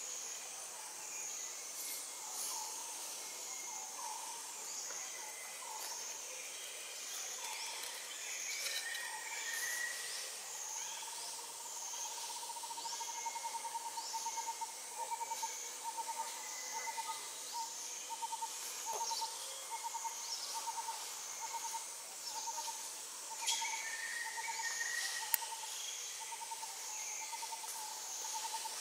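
Forest ambience: birds repeating short, high chirps throughout, and from about a third of the way in a rapid, evenly pulsing mid-pitched call that keeps going.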